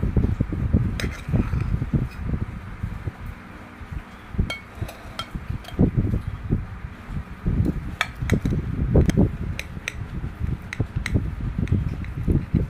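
Scattered sharp clinks of a utensil against a pan or dish, over irregular dull low thuds.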